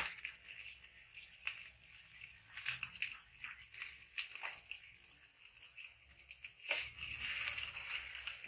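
Metal spatula scraping and tapping against a steel wok as egg is stir-fried, in scattered irregular scrapes, over a steady frying sizzle. The sound gets louder about seven seconds in.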